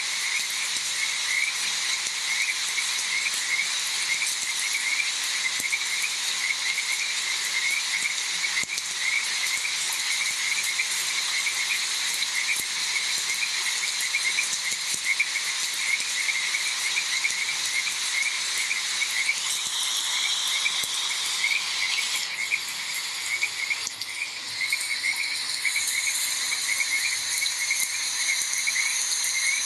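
A chorus of frogs calling in a quick, even run of short croaks, with insects buzzing and shrilling steadily at a higher pitch. A new high insect tone joins near the end.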